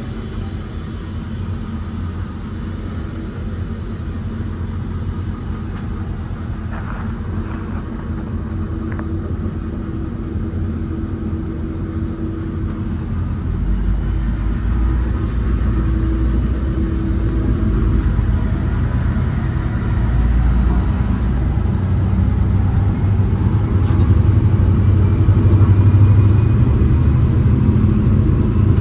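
N-class diesel locomotive and train pulling away and gathering speed: a low rumble that grows steadily louder, with a thin whine rising in pitch through the second half as it accelerates.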